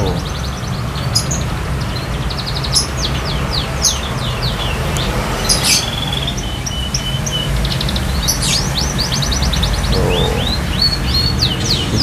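Canary singing shyly in short chirps, sweeping whistled notes and several fast trills, a bird just coming back into song after its moult, over a steady low background rumble.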